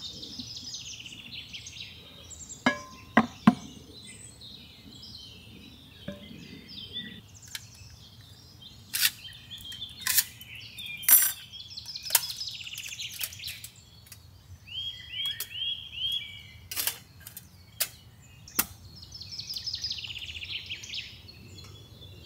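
Songbirds singing, with several different songs, one of them a run of four quick repeated notes about two-thirds of the way in. Scattered sharp knocks and clacks, the loudest sounds, come in small clusters near the start, in the middle and near the end.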